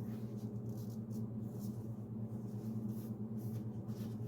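A steady low electrical hum, with faint scattered clicks and taps over it.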